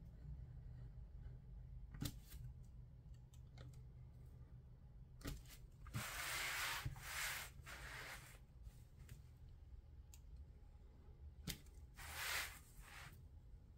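A few sharp clicks and scratches from an art knife blade working in thin paper. Twice there is a longer swishing rustle, about six to eight seconds in and again around twelve seconds, as the paper sheet is slid and turned across the board.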